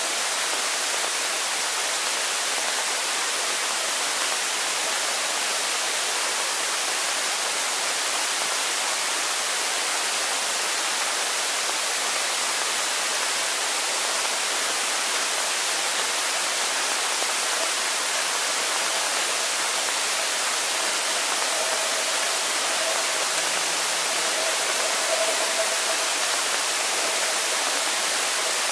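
Steady underwater hiss of a swimming pool picked up by a submerged action camera. A faint steady tone joins it in the second half.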